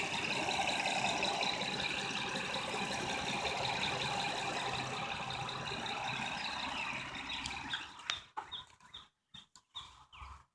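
A 2007 Honda Odyssey's 3.5-litre V6 running at idle, warmed up, with a light clatter that the owner suspects comes from the timing belt. About eight seconds in, the sound breaks up into short fragments and drops out.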